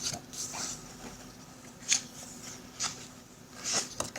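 Paper handling: a few short, separate rustles and crisp clicks, as pages of a book are turned and handled.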